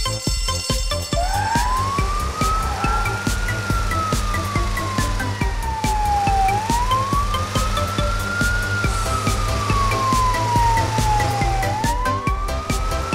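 A fire-engine siren wailing, starting about a second in. It rises over about two seconds, falls slowly over about three, and repeats every five seconds or so, over background music with a steady beat.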